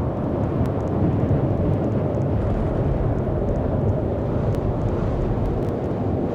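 A steady low rumbling roar, with a few faint clicks over it.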